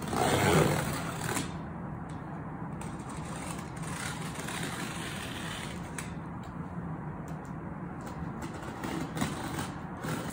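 Box cutter slicing through packing tape along the seam of a cardboard box, a loud scratchy rip in the first second, then quieter cutting and handling of the cardboard. A steady low hum runs underneath.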